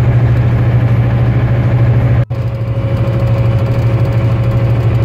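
Steady low engine and road drone inside a semi-truck's cab as it drives on the highway, with a steady mid-pitched hum over it. The sound drops out for an instant a little over two seconds in.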